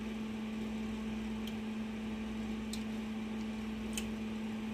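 A steady low electrical hum, as from a household appliance, with a few faint ticks.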